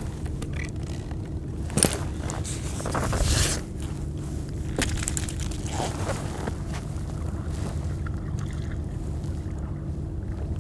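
Sounds aboard a fishing kayak on the sea: a steady low hum with a sharp knock on the hull about two seconds in, then a brief rush of water or scraping around three seconds, with a few lighter knocks after.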